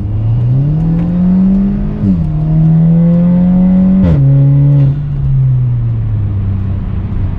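2017 Audi A4 B9's turbocharged four-cylinder engine through an Armytrix valvetronic cat-back exhaust with its valves closed, much quieter than with them open. The car accelerates: revs climb, drop at a gearshift about two seconds in, climb again, drop at a second shift about four seconds in, then fall away as it eases off.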